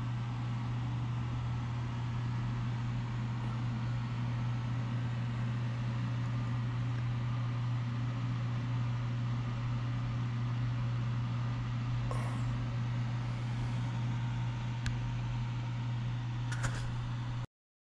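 Two computer fans mounted in a keezer's collar running, one blowing up and one down to circulate the cold air: a steady low hum with an airy whoosh. A couple of faint clicks come near the end, and the sound cuts off suddenly just before the end.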